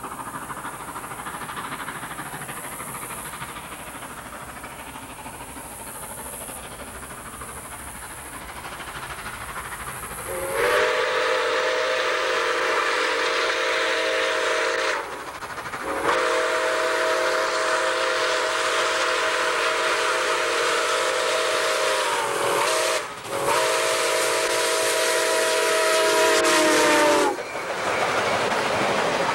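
Steam locomotive approaching with a steady rumble and hiss, then sounding its chime whistle in four blasts, long, long, short, long: the grade-crossing signal. The train is passing close by near the end.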